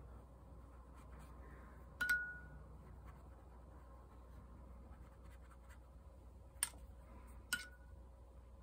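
Paintbrush being handled and laid down among watercolour tools: three light taps, one about two seconds in and two near the end. The first and last each have a short ringing note, and faint scratchy handling sounds run between them.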